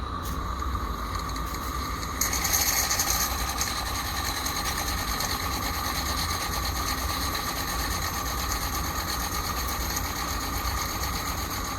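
AccuCraft Ruby live-steam model locomotive running under steam: a fast, even mechanical beat over a steady hiss, the hiss louder for a second or so about two seconds in.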